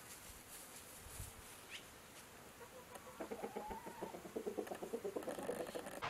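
Chickens clucking: faint at first, then a quick run of short clucks starting about halfway through and getting louder.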